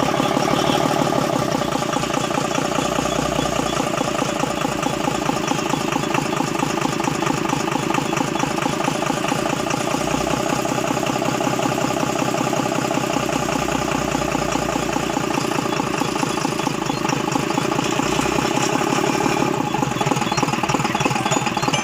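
Tata 2518 tipper truck's diesel engine idling steadily with an even firing pulse, running after its fuel injection pump has been refitted.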